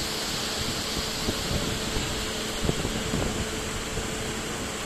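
Steady drone of a stationary Indian Railways electric locomotive's blowers with a low hum, under an even hiss of rain. A few light knocks come a little past the middle.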